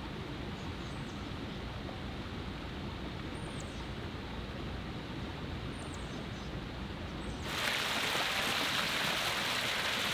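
A steady quiet outdoor hush with a few faint high chirps. About seven and a half seconds in, it cuts suddenly to the louder rushing splash of pool fountain jets spouting up and falling back into the water.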